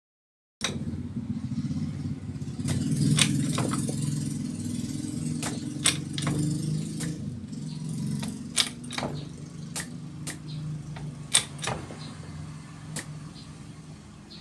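Mitsubishi L300 diesel engine running steadily with its injector nozzles under repair, with irregular sharp clicks and knocks over it.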